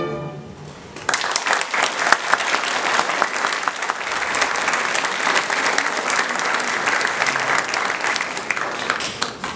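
A folk string band's last note dies away, and about a second in an audience starts applauding, dense steady clapping.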